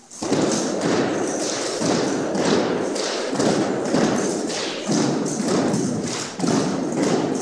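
Armed drill team working drill rifles in unison: a fast, steady run of thuds and taps from rifles being slapped, handled and struck, with boots on a wooden gym floor, beginning abruptly just after the start.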